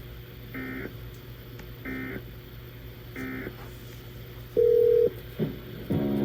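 Emergency Alert System end-of-message code received over the radio: three short, identical two-tone digital data bursts about a second and a quarter apart, closing the tornado warning. A single loud steady beep of about half a second follows, and music starts near the end.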